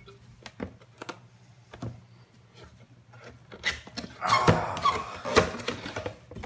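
Cardboard liquor gift box being handled and opened by hand: scattered light taps and clicks at first, then about four seconds in a couple of seconds of louder scraping, rustling and knocks.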